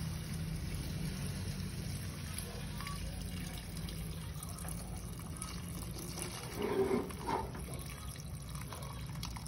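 Water poured in a steady stream from a kettle into a wok of stir-fried vegetables and meat, splashing into the gathering broth. There is a low steady hum underneath, and a brief louder noise about seven seconds in.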